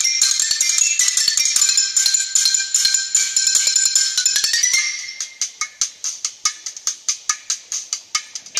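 Percussion music played through a pair of bare Polk Audio dome tweeters with no woofer, so only the treble comes through, thin and without bass; it is a listening test of the repaired tweeters. Dense ringing percussion gives way, about five seconds in, to a quieter run of sharp, even taps like a wood block.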